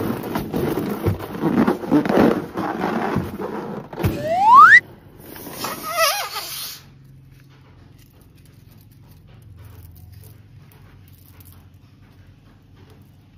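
A filled latex balloon rubbed and squeezed between hands, squeaking with crackly rubbing. About four seconds in comes a loud rising squeal that cuts off suddenly. After that only faint sounds remain.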